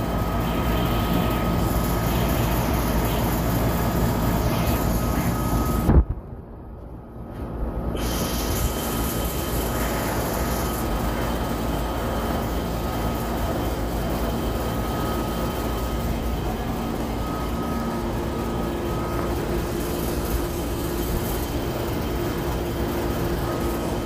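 Central air-conditioner condenser unit running: a steady whoosh from its fan with a low electrical hum from the compressor. The sound drops away for about two seconds around six seconds in, then comes back.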